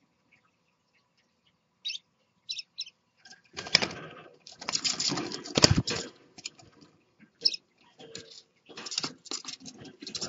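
Scarlet-chested parakeets in a cage: a few short high chirps about two seconds in, then a loud stretch of wing flapping and scuffling from about four to six seconds, with more flutters near the end.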